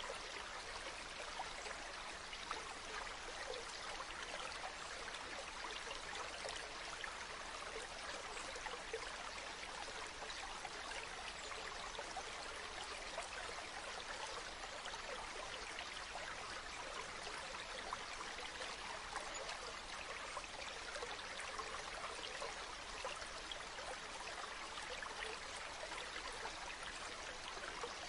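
Mountain stream running over rocks: a steady rush of water with constant small splashes and trickles.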